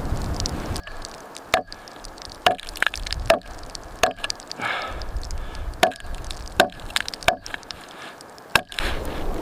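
Wood being chopped: a steady series of about nine sharp blade strikes, roughly one a second.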